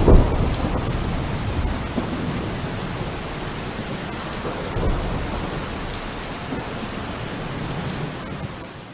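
Steady rain with a low rumble of thunder, loudest just after the start, fading out at the end.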